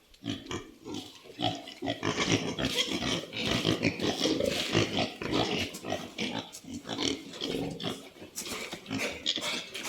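Pigs grunting continuously, busiest and loudest in the middle stretch.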